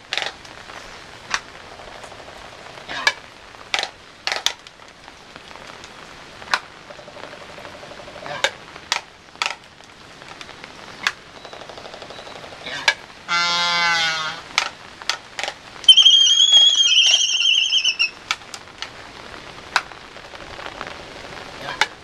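Laysan albatross pair in courtship dance: sharp bill clacks scattered throughout. About halfway through comes a long, wavering call with many overtones, and soon after a higher, steady whistled call lasting about two seconds.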